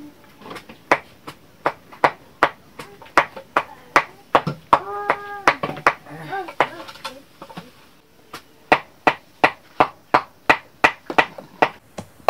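Steady chopping strokes, about three a second, pausing for a second or so past the middle before picking up again. A brief pitched vocal sound comes among the strokes about five seconds in.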